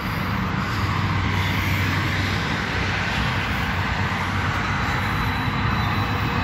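Steady roar of road traffic, a loud even rumble with no distinct events.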